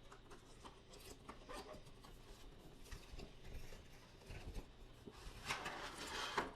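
Faint handling noise from unboxing a product box: scattered light clicks, scrapes and rustles of cardboard and packaging, with a louder rustle about five and a half seconds in.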